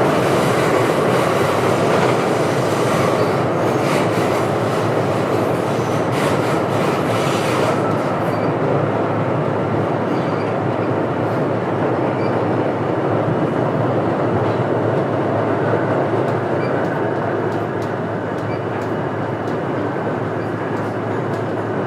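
Subway train running through a tunnel: a steady, loud rail noise with clicks and clatter from the wheels, busiest in the first eight seconds or so and smoother after.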